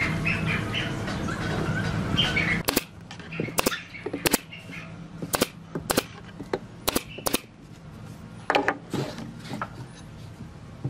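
Nail gun firing into wood: about eight sharp shots at uneven intervals, starting a few seconds in. Before the shots there is a steady low hum with bird chirps, and the hum cuts off at the first shot.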